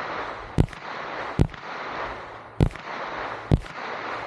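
An AR-style rifle firing four single shots, each a sharp crack, unevenly spaced about a second apart, over a steady background hiss.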